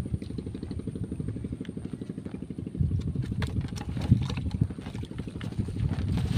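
A small engine running with a steady, low, fast-pulsing rumble. Light clicks and knocks come from a bamboo fishing rod being handled, about halfway through and again near the end.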